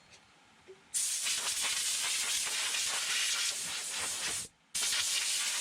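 Aerosol spray can hissing in two bursts: a long spray of about three and a half seconds, a brief stop, then another short spray.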